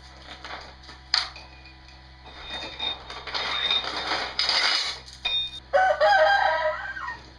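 A rooster crowing near the end, one held call of about a second that drops in pitch as it ends. Before it there is a sharp click and a few seconds of hissy workshop noise.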